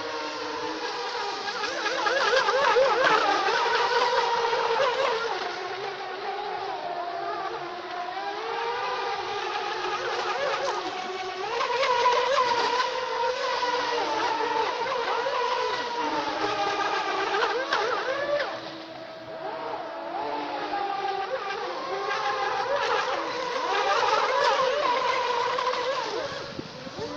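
FT011 Feilun brushless RC speedboat's electric motor and drive whining, the pitch sliding up and down with the throttle. It gives the high, race-car-like sound the uploader likens to a Formula 1 car, fading briefly a little over two-thirds of the way through.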